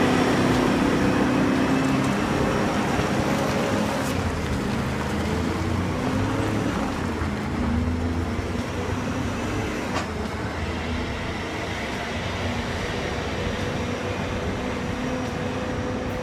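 Kenworth 850 logging truck's Detroit Diesel 12V71 twin-turbo engine running steadily while hauling a heavy timber load, its pitch shifting a little.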